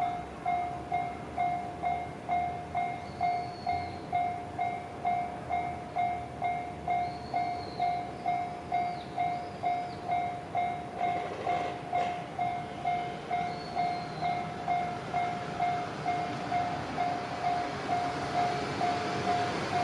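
Level-crossing warning bell ringing at about two strokes a second, with a train's running noise building near the end as it approaches the crossing.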